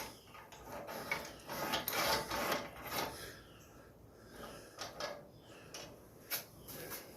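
Metal scraping and clinking in several irregular bursts as a tool works a rusty bolt on a garden tiller's handle mount until it comes loose.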